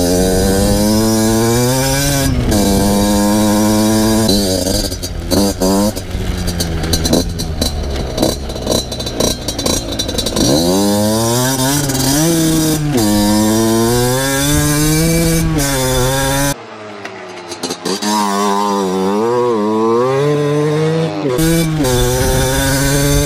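Two-stroke motocross bike being ridden hard, its engine revving up and dropping back over and over as it accelerates, shifts and backs off the throttle. It briefly goes quieter about two-thirds of the way through, then revs up again.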